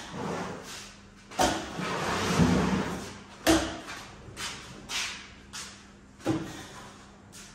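Steel trowel scraping decorative plaster across a wall panel in a series of short strokes, several starting with a sharp tap, with one longer scrape between about one and a half and three seconds in.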